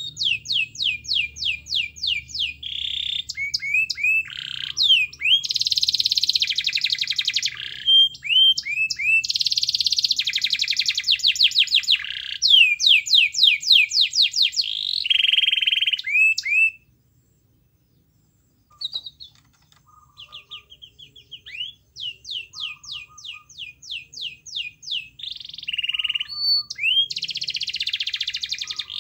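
A domestic canary singing a long, lively song of fast repeated notes and rolling trills. The song breaks off for about two seconds a little past halfway, then starts again.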